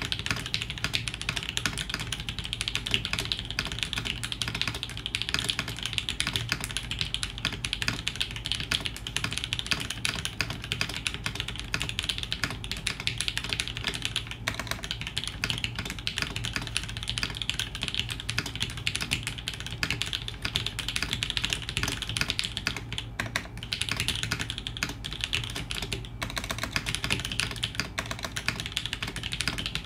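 Fast touch-typing, about 108 words per minute, on a TGR Alice mechanical keyboard in a polycarbonate case with an FR4 plate and lubed Shiro switches. A dense, steady stream of keystroke clacks, broken by a few brief pauses.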